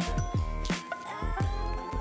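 Upbeat background music with a steady drum beat, deep bass thumps and a held synth note.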